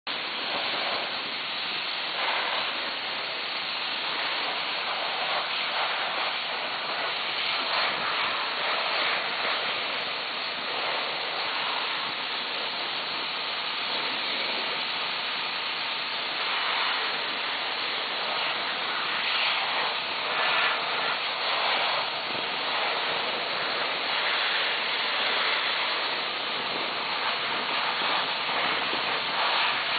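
Steady hissing rush of compressed air jetting from hand-held hose lances, blowing dust and sand off the railway track.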